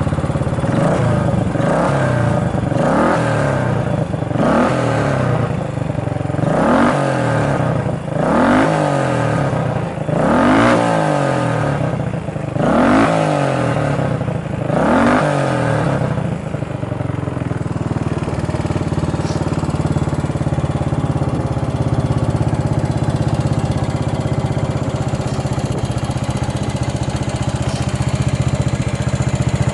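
Yamaha SR400's air-cooled single-cylinder four-stroke engine being blipped: the revs rise and fall about every two seconds, then it settles to a steady idle about halfway through. It is running with no abnormal noise, per the seller's startup check.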